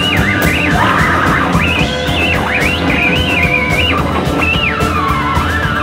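Live rock band playing: electric guitar and drums, with a high lead line that slides and wavers in pitch over them.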